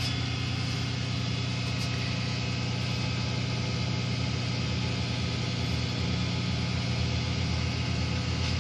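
Flatbed tow truck's diesel engine idling steadily, a low even hum that does not change.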